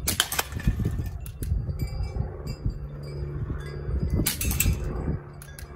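Two shots from a CO2-powered airsoft Schofield revolver, about four seconds apart. The first hits an aluminium drinks can and knocks it over with a short metallic clatter.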